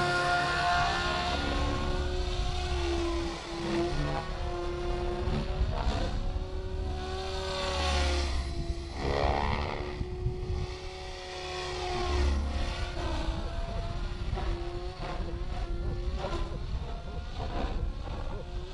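Electric RC helicopter (flybarless LionBit 465 with a Scorpion motor) flying aerobatics: the main rotor blades buzz and the motor whines, the pitch sliding up and down repeatedly as the rotor loads up and the model swings past.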